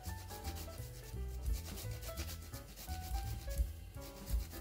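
Fresh ginger root rubbed on a flat stainless-steel grater: repeated short rasping strokes. Soft background music with a bass line plays underneath.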